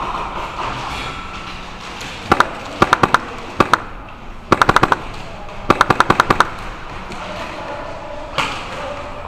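Airsoft guns firing BBs: a few single shots and short bursts about two to three and a half seconds in, then two rapid bursts of several shots each around four and a half and six seconds in.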